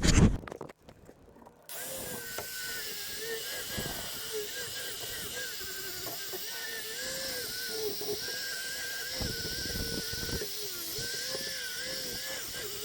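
Small handheld power tool running on metal, its motor hum dipping and recovering again and again as it bears on the work, with a steady hiss above it. It starts about two seconds in, after a short knock.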